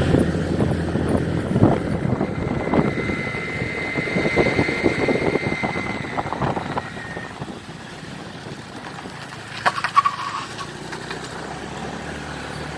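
Motorbike engine running while climbing a steep mountain road, with gusts of wind buffeting the microphone; it turns quieter and steadier after about seven seconds. A short, sharp sound stands out about ten seconds in.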